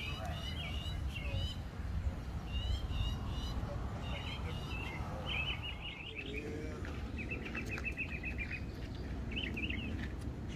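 Small birds chirping and twittering repeatedly, with a quick run of chirps about two-thirds of the way through, over a steady low rumble.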